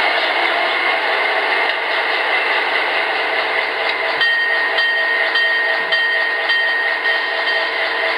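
The sound unit of an HO scale EMD F7 model locomotive plays a diesel engine running sound through its small onboard speaker while the model stands still. A steady high whine joins the engine sound about four seconds in.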